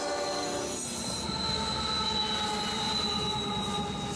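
A diesel freight locomotive's horn sounds and cuts off under a second in; then tank cars roll past, their steel wheels squealing in a few steady high tones over the rumble of the train.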